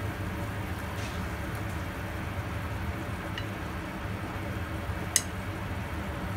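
A pot of water boiling steadily on the stove, a continuous bubbling hiss. A single sharp click about five seconds in.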